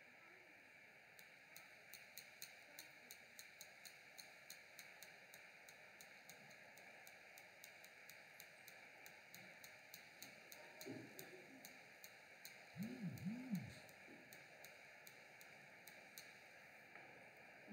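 Near silence: room tone with faint, irregular clicking throughout. About eleven and thirteen seconds in there is a brief low vocal sound, like a short hum.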